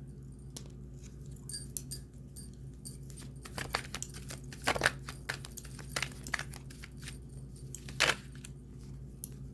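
Tarot cards being shuffled and handled: irregular sharp clicks and short rustles, loudest about five and eight seconds in, over a low steady hum.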